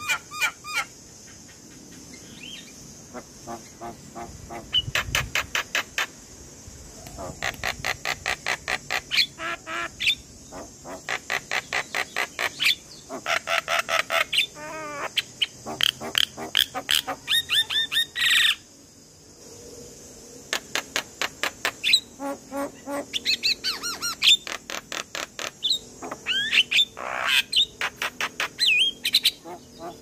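Javan myna singing: fast runs of repeated harsh notes and chattering trills, with a few whistled glides near the end, falling briefly quiet twice.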